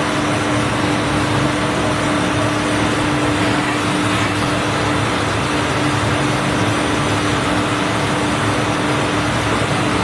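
Metal lathe running while cutting steel: a steady machine noise with a constant hum.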